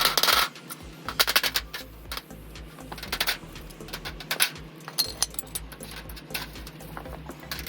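A string of short clinks and taps from hard objects being handled, coming in small clusters every second or two, the loudest right at the start.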